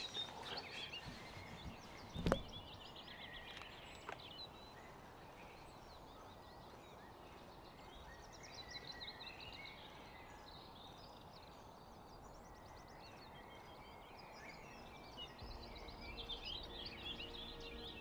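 Small forest songbirds chirping and singing over a steady background hiss. A single sharp click about two seconds in, and a fainter one about four seconds in.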